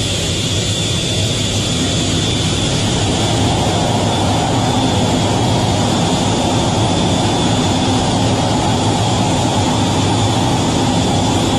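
F/A-18 Hornet's twin jet engines running at high power while the jet waits on the carrier catapult, heard from inside the cockpit: a steady roar with a high whine over it. It grows a little louder about three seconds in.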